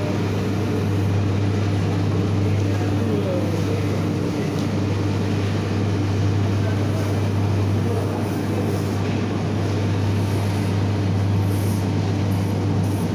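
Steady low hum of footwear-factory machinery running without pause, with faint voices in the background.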